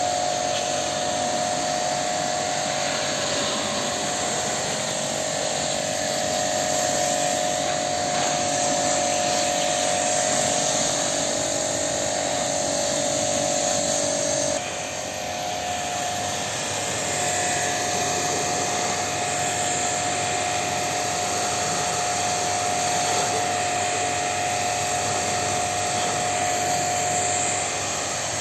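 Pressure washer running steadily, a high motor whine under the hiss of its water jet spraying an air-conditioner condenser coil. The sound dips briefly about halfway through, then carries on.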